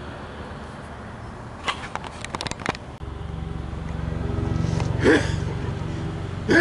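A cluster of sharp clicks and rubbing about two seconds in, then a steady low hum sets in, with two short louder sounds, one about five seconds in and one at the very end.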